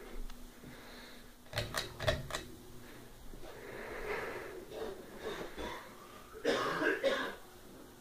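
A few sharp clicks about one and a half to two and a half seconds in, then a person coughs near the end.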